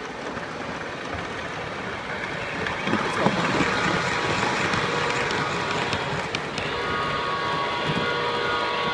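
Lionel O-gauge model trains running on three-rail track, their wheels rumbling and clattering and getting louder from about three seconds in as a train passes close. From about seven seconds in, a locomotive's onboard sound system holds a steady, multi-note whistle.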